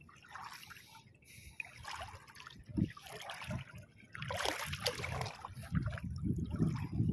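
Irregular splashing and sloshing of legs wading through shallow seawater, growing louder about four seconds in.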